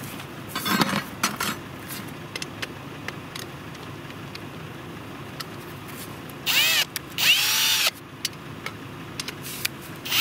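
Handheld power drill run in two short bursts of about half a second each, a little past the middle, its motor pitch rising and falling with each squeeze of the trigger; a third burst starts right at the end. Light knocks and rustling about a second in.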